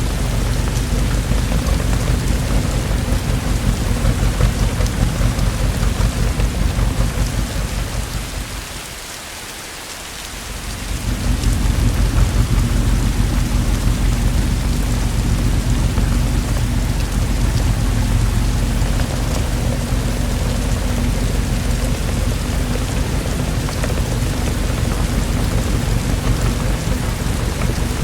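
Steady rainfall with a continuous deep rumble of thunder beneath it. About eight seconds in the sound fades down and the low rumble drops away for about two seconds, then both come back.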